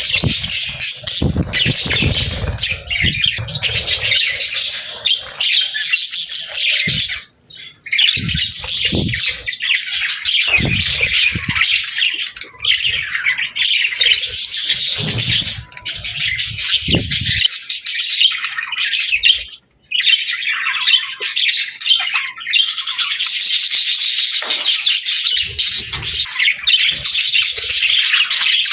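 Many birds chirping, chattering and squawking at once in a dense, unbroken chorus. Low rumbling thumps sound underneath during the first half, and the chorus breaks off briefly twice, near 7 s and just before 20 s.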